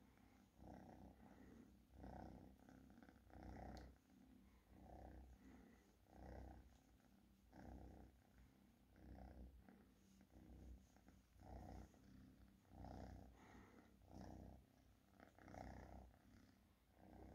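Domestic kitten purring faintly while being stroked under the chin, the purr swelling and fading with each breath about every second and a quarter.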